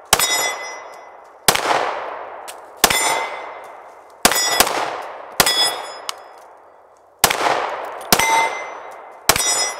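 Girsan MC9T 9mm pistol fired eight times at a slow, uneven pace. Each shot is followed by the ringing of a struck steel plate target and a dying echo.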